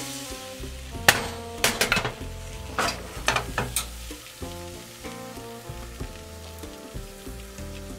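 Crepe batter sizzling in a hot nonstick frying pan as it is poured and swirled thin, with a handful of sharp clicks and knocks in the first half, over background music.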